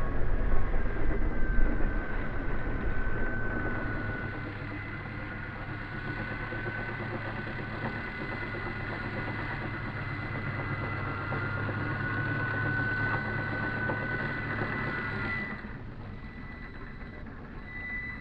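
Electric motor and propeller of a radio-controlled model aeroplane, a steady whine that wanders slightly in pitch over rushing noise. Louder for the first few seconds, with an abrupt change near the end.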